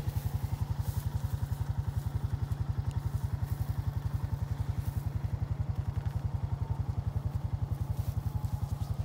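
Quad (ATV) engine idling steadily, an even, rapid low putter that holds the same pace throughout.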